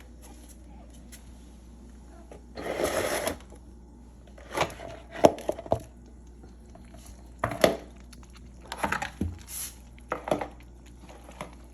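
Objects being handled: a brief rattling scrape about three seconds in, then a series of sharp knocks and clatters.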